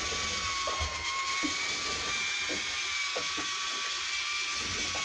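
A motor running steadily, giving a constant high whine over an even hiss, with a few faint low knocks.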